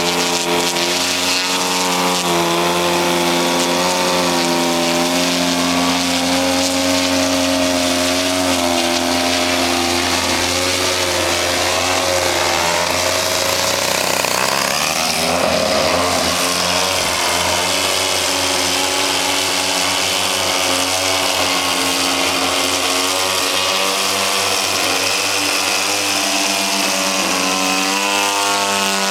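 Two 50cc two-stroke gas engines of 89-inch 3DHS Slick aerobatic RC planes running together, their pitches rising and falling with the throttle as the planes manoeuvre. About halfway through the pitch sweeps up and down as one passes low and close.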